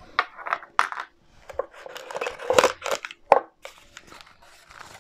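Foil sachet packaging crinkling and rustling as it is handled and pulled open, in an irregular run of rustles with a few sharp crackles, loudest in the middle.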